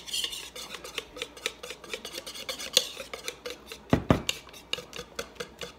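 Metal wire whisk beating thick batter in a ceramic bowl, its wires clicking against the bowl several times a second as the lumps are whisked out. A pair of heavier knocks about four seconds in.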